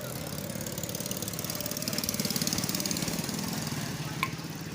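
Honda CG 70 motorcycle's small single-cylinder four-stroke engine running, a little louder for a moment around the middle.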